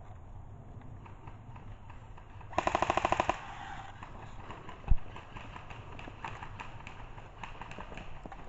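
Airsoft rifle firing a short full-auto burst of about a dozen rapid shots, a little under a second long. A single sharp thump follows about two seconds later, then faint scattered clicks.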